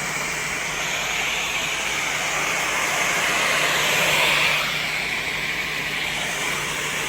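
Handheld blow dryer running steadily on a soft bonnet hood attachment: a continuous rush of air with a low motor hum under it, swelling slightly about four seconds in.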